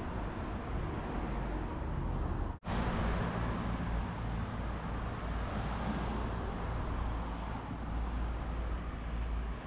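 Steady road traffic noise from cars on a town street, a low even rumble and hiss, broken by a brief drop to silence about two and a half seconds in.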